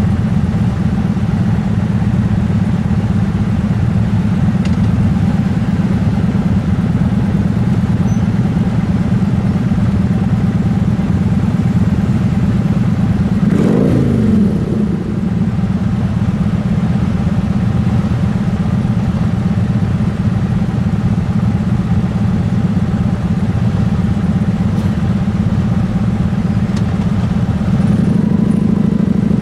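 A queue of motorcycles with their engines running together, making a loud, steady low rumble. About halfway through, one engine's pitch briefly rises and falls as a bike revs or passes close.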